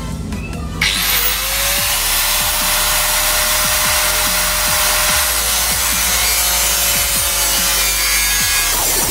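Angle grinder with a cutting disc starts about a second in, its whine rising and then holding steady, and cuts into the sheet-metal side panel of a PC case with a loud grinding noise. It winds down just before the end.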